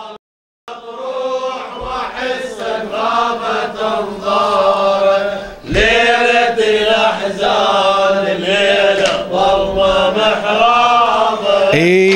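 Voices chanting an Arabic Shia mourning lament (latmiya) together in a slow, drawn-out melody over a steady held tone. The sound drops out to silence for about half a second just after the start.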